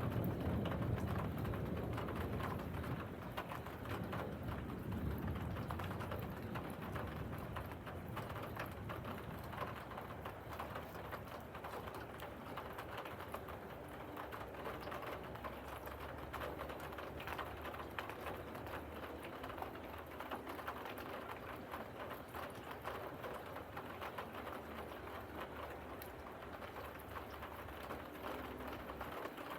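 Steady rain pattering on a surface during a thunderstorm, with the tail of a thunder rumble fading out over the first few seconds.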